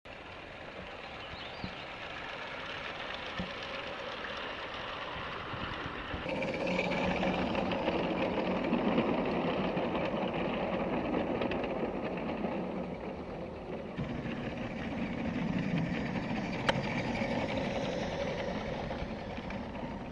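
G-gauge live-steam garden-railway locomotive running with its train. The engine's steady mechanical chuffing and hiss get louder and fuller about six seconds in.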